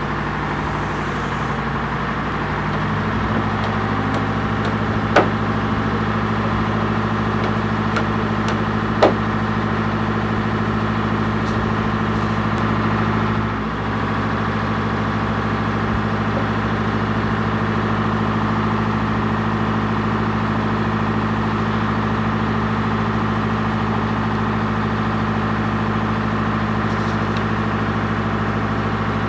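An engine idling steadily, with two sharp knocks about five and nine seconds in.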